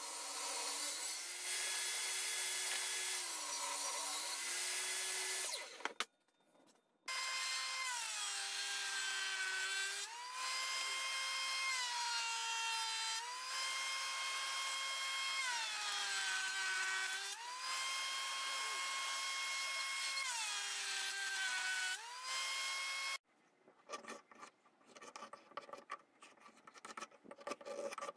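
Table saw running and cutting a board, its motor pitch sagging under load twice. After a short break, a jointer runs as a board is fed across its cutterhead four times, the pitch dipping with each pass and recovering. Near the end come faint scratching and ticks of a compass point and pencil on the wood.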